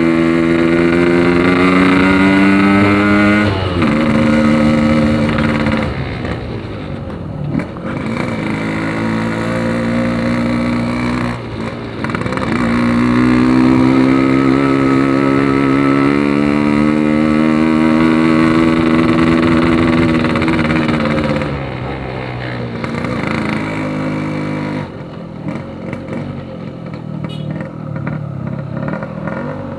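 Yamaha RX-King two-stroke motorcycle engine running through a Packing Power aftermarket exhaust with a loud, slightly bassy note. The engine pitch rises and falls with the throttle: it drops sharply a few seconds in, climbs again a little before halfway, holds, falls away, and settles to a lower, quieter note near the end.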